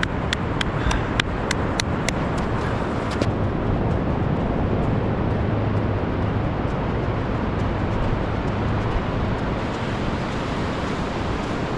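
Steady wind and surf noise on an open beach, with a low rumble. A quick, regular run of sharp clicks, about three a second, stops about three seconds in.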